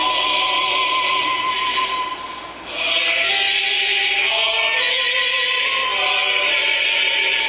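Music with singing playing through a Bluetooth speaker, dropping out briefly a little over two seconds in and then coming back: the stream being interrupted by interference from a running microwave oven.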